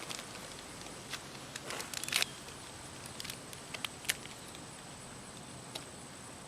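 Faint scattered rustles and a few light clicks over a low steady hiss.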